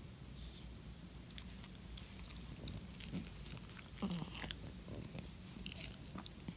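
A dachshund's small wet mouth clicks and smacks, scattered and irregular, with a louder snuffle about four seconds in.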